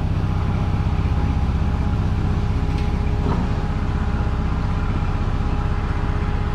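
Small engine of a ride-on miniature railway locomotive running steadily under way, with a fast even pulse and a faint steady whine above it. There is a light click about three seconds in.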